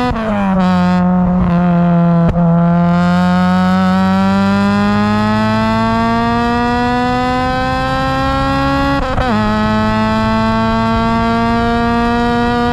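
Honda Civic Type R EP3's 2.0-litre K20 four-cylinder engine, breathing through a 4-2-1 tubular manifold and a 70 mm silenced exhaust, pulling hard under acceleration. Its pitch drops at an upshift at the start, climbs steadily for about eight seconds, drops again at a second upshift about nine seconds in, then rises once more.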